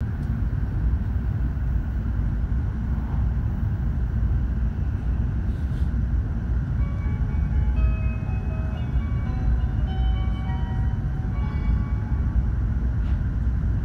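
Steady low rumble of an E7/W7-series Hokuriku Shinkansen car in motion, heard from inside the passenger cabin. About seven seconds in, a short melody of chime notes plays over the train's speakers, the signal that an onboard announcement is coming.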